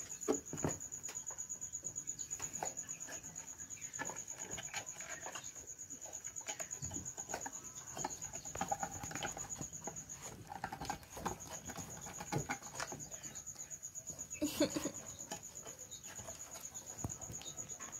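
Cats play-fighting on a concrete floor: soft scuffling and pattering of paws, over a steady high-pitched trill. Once, about three-quarters of the way through, a brief louder pitched sound breaks in.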